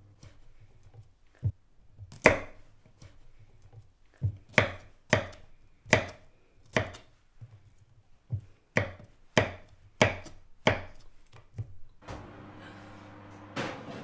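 Knife chopping on a chopping board: about fifteen sharp, uneven strikes, some in quick pairs. Near the end a steady rushing noise comes in.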